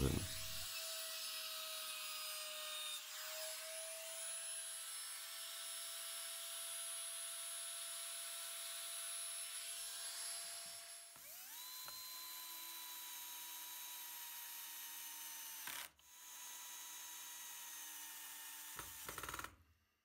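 Electric trim router running with a steady high whine while pine battens are edge-routed. About ten seconds in it winds down, then spins back up to a higher pitch and runs on until it stops shortly before the end.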